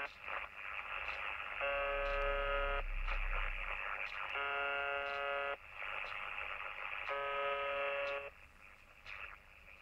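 The Russian shortwave station UVB-76, 'The Buzzer', on 4625 kHz, received in upper sideband on a CommRadio CR-1 receiver: a harsh buzz tone about a second long that comes three times, about every two and three-quarter seconds, over steady static hiss.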